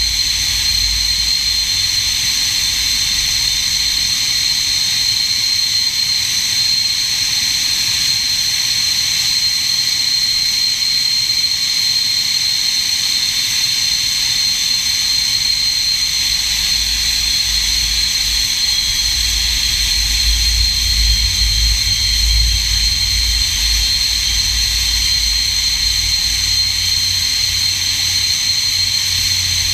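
SEPECAT Jaguar's Rolls-Royce Turbomeca Adour turbofans running on a ground run: a steady high-pitched whine over a deep rumble, the rumble swelling about twenty seconds in.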